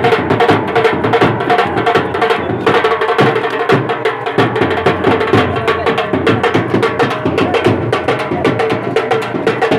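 Indian band music: fast, dense drumming with a steady held melody note over it.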